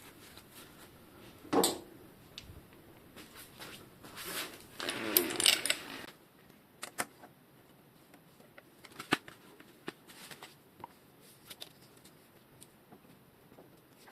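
Hand work on a bicycle's fork and headset during reassembly: scattered light clicks and taps of small parts and tools, with a short rustle about one and a half seconds in and a longer rustle around five seconds in.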